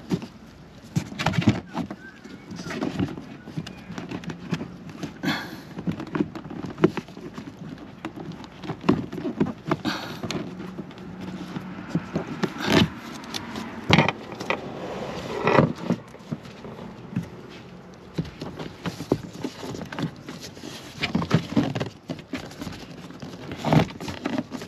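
Gloved hands working a wiring harness in behind a plastic trim panel: irregular clicks, knocks and scrapes of plastic, with rustling of the wiring between them.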